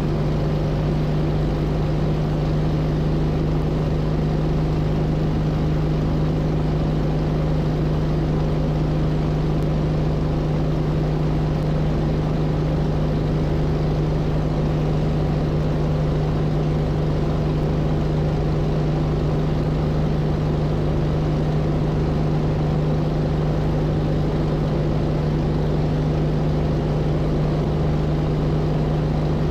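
Hummel Ultracruiser light aircraft's engine and propeller running steadily in flight, one constant drone with no change in throttle.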